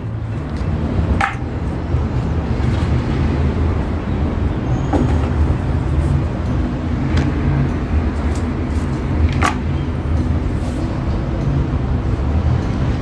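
Steady low rumble of street traffic, like a large vehicle's engine running, with a few short sharp clicks about 1, 5, 7 and 9 seconds in.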